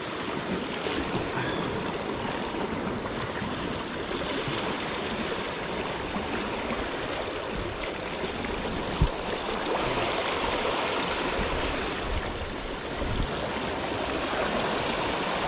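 Sea water washing and splashing over shore rocks, a steady rushing noise, with one brief low thump about nine seconds in.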